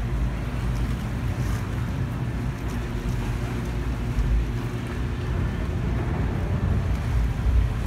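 Motorboat engine running with a steady low hum, over a haze of water and wind noise.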